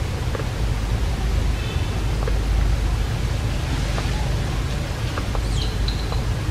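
Steady rushing noise with a heavy low rumble, with a few faint clicks and a brief high chirp about five and a half seconds in.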